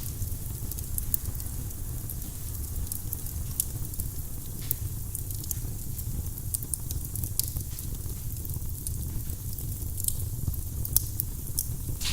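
Firewood burning in a fireplace, crackling with frequent sharp pops over a low steady rumble; a couple of pops stand out louder, one near the middle and one near the end.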